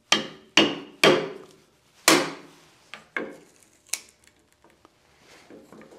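A chisel struck with sharp blows, driving it into the paper glue joint between a maple platter and its sacrificial faceplate block until the joint splits. There are four hard strikes with a short ring in the first two seconds or so, then a few lighter knocks.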